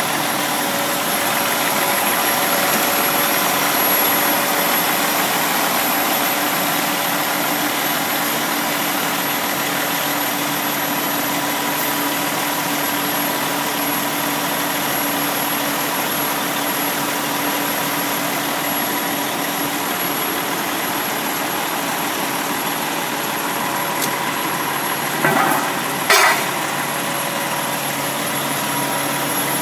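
Quint fire truck's diesel engine idling steadily. One tone in the drone drops out about two-thirds of the way through, and near the end there are two short knocks.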